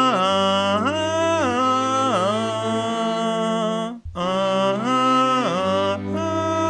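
Male voices singing a choral piece a cappella in harmony, a tenor line sliding up and down above held lower notes. The sound breaks off sharply for an instant about four seconds in, then the chord comes back.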